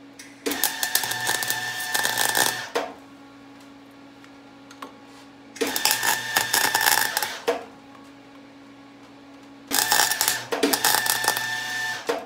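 Electric welder laying three short welds of about two seconds each, each one crackling and starting and stopping sharply, with a low steady hum between them.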